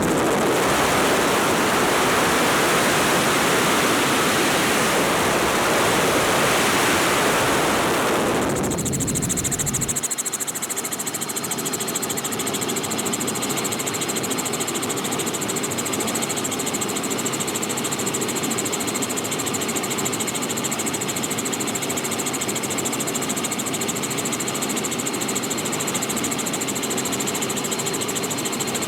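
Robinson R44 helicopter in flight with its doors off: steady rotor and piston-engine drone. For the first eight to ten seconds it is buried under a heavy rush of wind on the microphone, which then drops away, leaving the rotor and engine noise.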